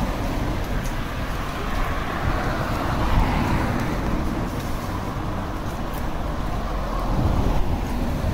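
City street traffic noise, with a vehicle passing that swells and fades about three seconds in.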